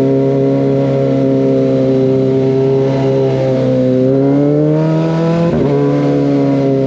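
Kawasaki ZX25R's 250 cc inline-four running through an Over Racing GP-RS aftermarket full-system exhaust under way. It holds a steady pitch, revs climb for about a second and a half, and a sharp break in the note about two-thirds in marks a quick gear change before it settles steady again.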